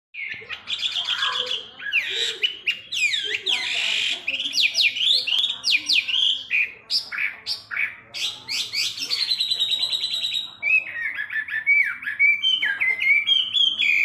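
A caged hwamei (Chinese melodious laughingthrush, the Indonesian 'wambi') singing hard and without pause. Its song is a fast, varied string of loud whistled notes and steep rising and falling sweeps. From about ten seconds in it settles into quicker runs of repeated, regular notes.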